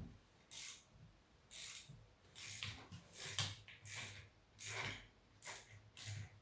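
Repeated short rasping mechanical strokes, about nine of them at roughly one to two a second, as a bicycle's handlebar gear shifter is worked loose and removed.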